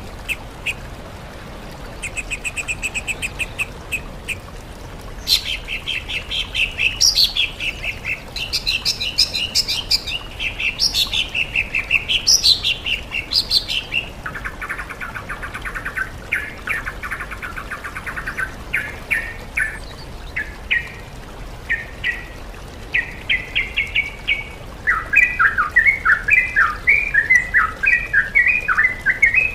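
Songbirds singing in a mixed recording of yellow-vented bulbul, oriental magpie-robin and green leafbird song. Short rapid trills give way to loud sweeping whistled phrases, then a buzzy chatter, and near the end a fast run of repeated warbled notes.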